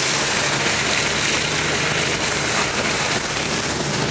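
Four-wheel drive pushing through floodwater: a steady rushing of water wash and spray, with a low engine hum underneath.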